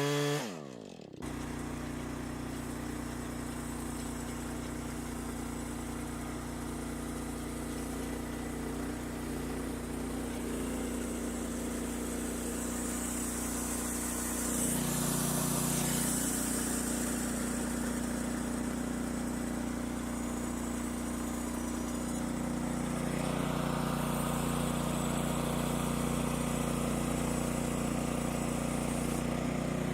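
Small gasoline engine of a Norwood LM29 portable band sawmill running steadily, with a brief drop about a second in.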